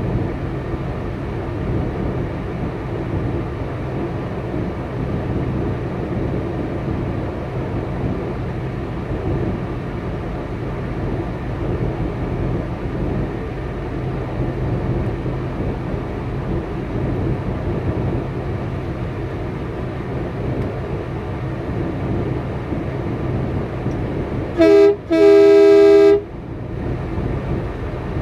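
Truck engine idling steadily, heard from inside a semi cab. Near the end a two-note vehicle horn sounds twice, a short toot and then a longer blast of about a second, much louder than the idle.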